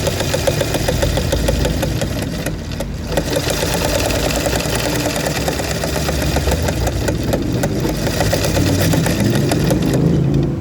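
Sewing machine running fast and stitching, a rapid even patter of needle strokes over a steady motor drone, easing off briefly about two and a half seconds in before picking up again.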